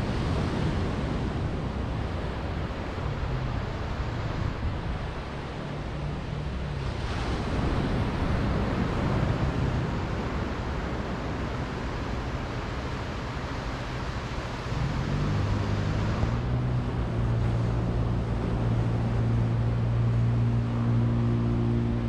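Small surf breaking and washing up a sandy beach, a steady rush of waves. About two-thirds of the way in, a low, steady engine hum comes in and grows louder over the surf.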